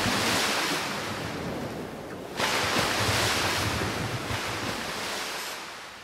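Ocean waves crashing, two surges of surf: the first already breaking and fading away, the second hitting suddenly about two and a half seconds in and slowly dying down.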